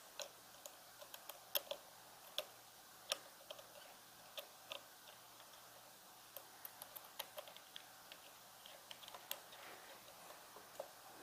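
Faint, scattered small clicks and ticks of a screwdriver and small screws being threaded into a GPU water block's acrylic casing, at an uneven pace.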